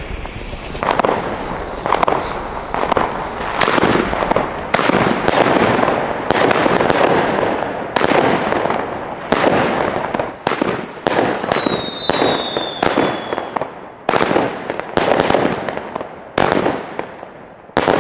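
A Nordlicht "Blutgrätsche" consumer firework battery (a small 128 g cake made by Funke) fires shot after shot, roughly one a second, each a sharp bang with a rumbling tail. A thin high tone falls in pitch for a few seconds midway. The shots thin out near the end.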